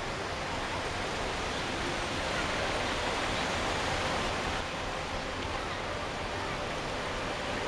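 Steady busy-street ambience: the murmur of a large crowd of pedestrians mixed with city traffic noise, swelling slightly in the middle.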